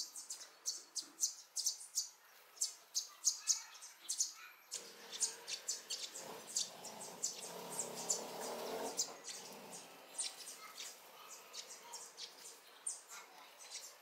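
Sparrows chirping: many short, high chirps, coming quickly in the first few seconds and more scattered after, with a soft low rumble for a few seconds in the middle.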